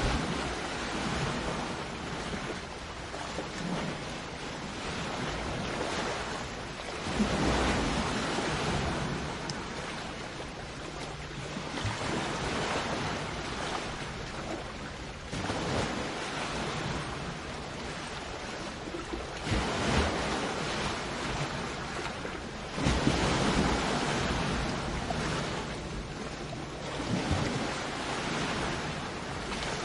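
Sea waves breaking and washing onto the shore, a steady rush of surf that swells into a louder surge every few seconds.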